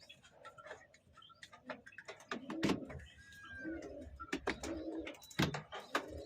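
A pigeon cooing in low repeated notes, with several sharp clicks or knocks among them. The loudest knocks come about two and a half and five and a half seconds in.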